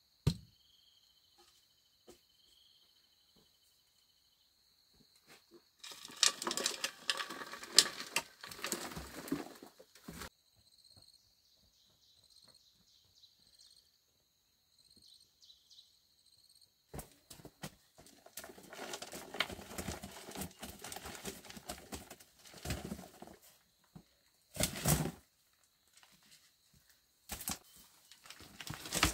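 Three stretches of rustling and handling noise, the longest in the middle, over a steady high chirping of insects.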